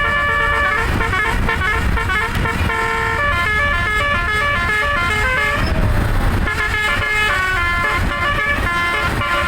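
Modular 'telolet' musical air horn of a tour bus playing a fast melody of short stepped horn notes, over a steady low rumble. About six seconds in the notes thin out for a moment under a rush of noise, then the melody resumes.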